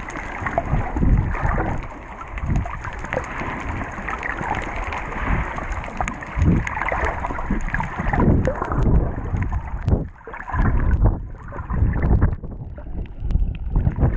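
Churning water and bubbles heard through a camera's underwater housing, with irregular low thumps and swishes from a snorkeler kicking and splashing at the surface.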